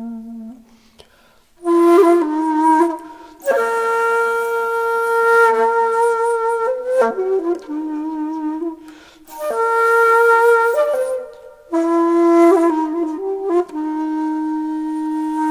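Background music: a solo flute melody of long held notes, in phrases separated by short pauses.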